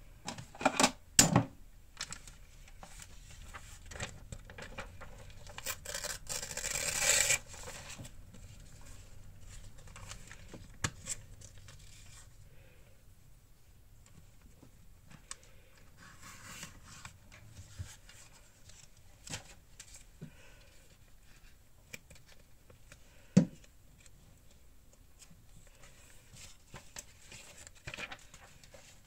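A sheet of paper torn along a clear tearing ruler, one tear about a second and a half long that grows louder, about a quarter of the way in. Around it, scattered clicks and rustles of paper and the ruler being handled, with a single sharp tap on the desk later.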